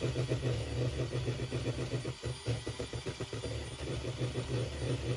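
Electric hand mixer running at high speed, its beaters whipping a cream filling of milk, whipped-cream powder and mascarpone in a plastic bowl: a steady motor hum with a fast rattle.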